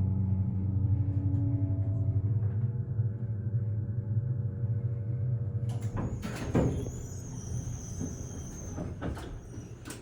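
Montgomery A-Series hydraulic elevator in travel with a steady low hum. About six seconds in the car stops and its doors slide open, with a high thin whine and a few clattering knocks.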